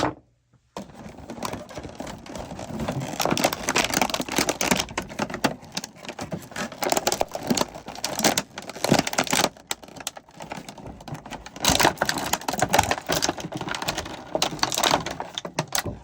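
Plastic toy packaging being worked open by hand: a dense, continuous run of small crackles and clicks starting about a second in.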